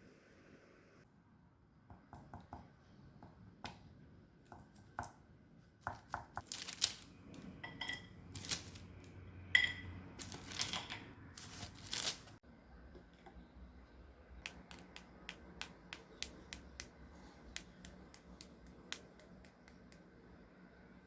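Kitchen handling noises: a string of clicks and knocks, loudest through the middle with a couple of brief ringing taps, then a run of quicker, fainter clicks.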